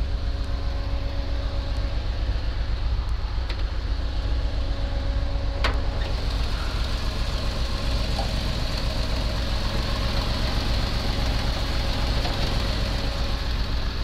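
Jeep engine idling steadily at operating temperature. This engine has a lifter tick, which the owner is setting out to measure. A single sharp click sounds near the middle.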